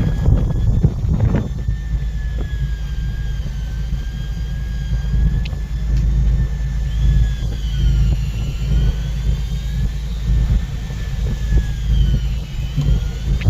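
Fishing boat's engine running with a steady low rumble, over which a thin mechanical whine drifts slowly up and down in pitch, with a few faint clicks.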